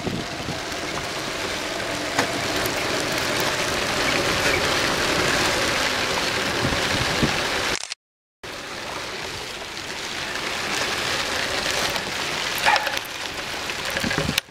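Storm wind and heavy rain blowing over a small sailboat's cockpit: a steady rushing noise that swells and eases, cut off briefly about eight seconds in.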